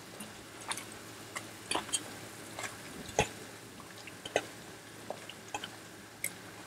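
Pieces of fried tofu dropped one at a time into a pot of chicken broth: scattered soft plops and small splashes, about a dozen, at irregular intervals.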